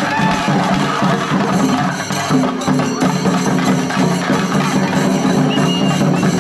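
Shinkari melam ensemble playing: chenda drums beaten in a fast, dense rhythm with cymbals, over a held melodic line.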